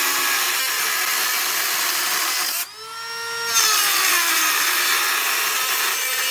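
Dremel rotary tool grinding out the opening of a metal door strike plate so a tight deadbolt will fit: a high-pitched grinding over the motor's whine. The grinding breaks off just before three seconds in, leaving only the motor whine dropping in pitch, then resumes about a second later.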